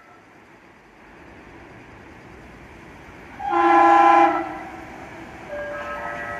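Metro-North electric commuter train approaching with a growing rumble, sounding its horn in one loud blast about a second long, a little past halfway.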